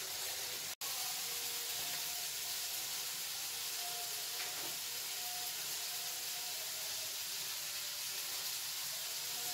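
Steady sizzle of food frying in hot oil in a pan, broken by a momentary cut to silence about a second in.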